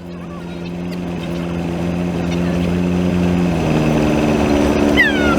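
Cessna 172's engine and propeller running steadily as heard in the cockpit, growing louder over the first few seconds, with a step in engine pitch a little after halfway.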